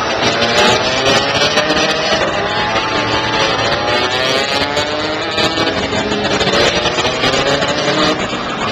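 Racing kart engines running at high revs, more than one at once, their pitch sliding up and down as the karts accelerate and lift off.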